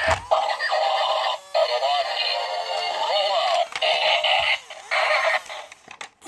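Synthesized, electronic singing or melody played through a small, tinny speaker, coming in several short phrases with brief pauses between them.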